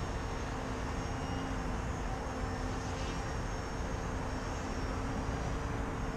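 Emax 2206 brushless electric motor spinning an 8-inch APC prop on a small RC 3D foam airplane in flight. It gives a steady drone at a nearly constant pitch.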